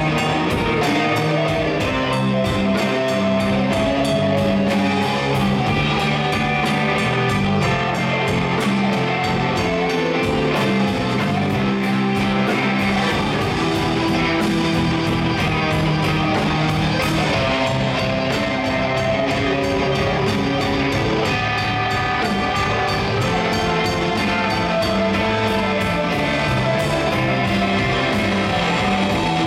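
Instrumental rock from a live band: electric guitars and bass over a drum kit keeping a steady beat.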